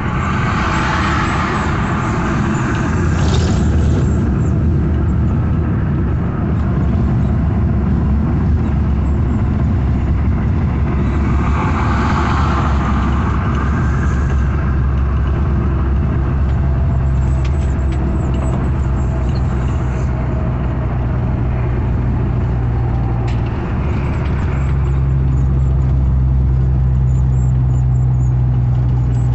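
Truck's diesel engine droning steadily under road and tyre noise, heard from inside the cab while cruising on a highway. A higher engine tone comes in about halfway through, drops out briefly and returns near the end.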